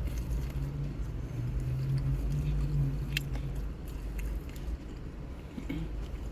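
Close-up chewing and biting of a chicken sandwich, with small mouth clicks, over a steady low rumble and hum.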